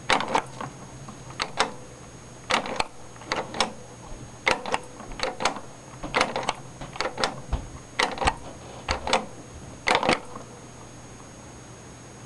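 IBM 14P CRT monitor's power button being pressed in and released over and over: about ten paired clicks, roughly one pair a second, stopping about ten seconds in. The monitor keeps shutting off and won't stay on.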